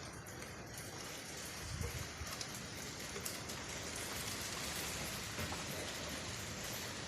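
Rain falling steadily, an even hiss of drops with scattered separate drips, getting a little heavier about two seconds in.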